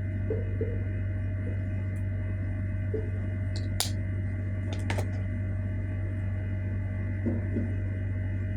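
A 2-in-1 hair dryer running with a steady hum, with a couple of sharp clicks about four and five seconds in.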